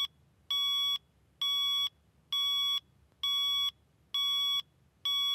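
Electronic alarm clock beeping: a high-pitched beep about half a second long, repeated about once a second at the same pitch and loudness.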